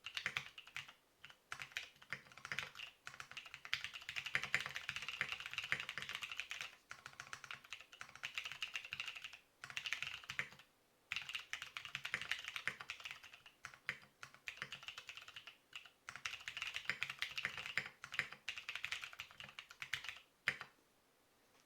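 Typing on a Frog TKL tenkeyless mechanical keyboard with Greetech Brown tactile switches lubed with Molykote EM-30L: fast runs of keystrokes with brief pauses between them. The typing stops about a second before the end.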